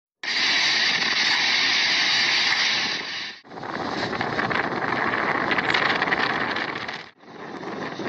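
Typhoon wind and driving rain: a steady, loud rushing noise, broken by two brief dropouts about three and a half and seven seconds in where the footage cuts to another clip.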